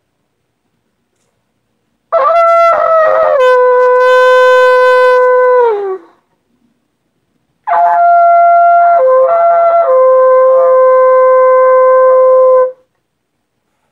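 Shofar blown in two long, loud blasts, about four and five seconds each, in an amateur's practice. Each opens on a higher, wavering note and drops to a lower held note; the first sags in pitch as it dies away, and the second briefly breaks upward in the middle before holding steady.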